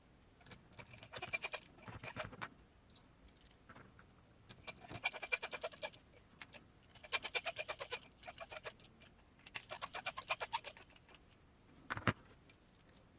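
M3 button head screws being driven into the crawler's chassis parts with a screwdriver: four short bursts of rapid ticking, each about a second long, then a single click near the end.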